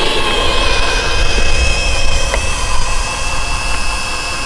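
Cordless drill motor of a homemade chain-driven skateboard running flat out with a steady high whine, over a low rumble. The drill is spinning freely without driving the board, a sign that the bicycle chain has jumped off the sprocket.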